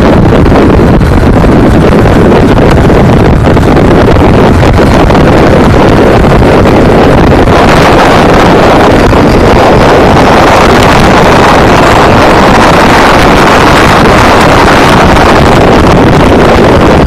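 1997 Ford F-350's 7.3 L Powerstroke turbo-diesel V8 running very loud through a bed-mounted exhaust stack on the move, with wind buffeting the microphone and overloading the recording. The exhaust sound gets brighter about eight seconds in.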